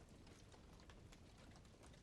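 Faint campfire crackling: small irregular snaps and pops of burning wood over a low steady rumble.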